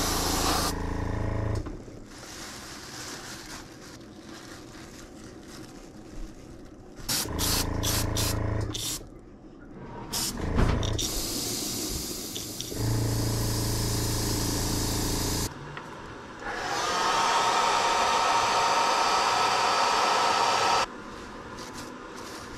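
Airbrush spraying paint in hissing bursts, the longest and loudest near the end, alternating with the steady hum of its small air compressor starting and stopping. A sharp knock about halfway through.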